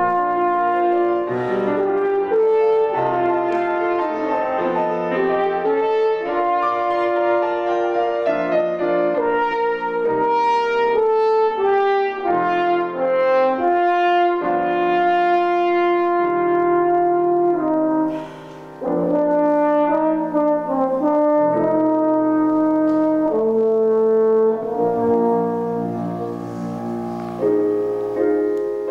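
French horn playing a slow, lyrical melody over piano accompaniment, with a brief break about eighteen seconds in. Near the end the horn stops and the piano carries on alone.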